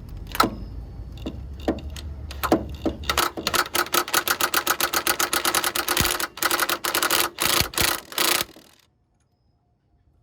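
Hand tools clicking on a socket, swivel and extension set reaching down through the exhaust manifold to an engine-mount nut. A few separate clicks come first, then a fast, even run of ratchet-like clicks for about five seconds, which stops abruptly near the end.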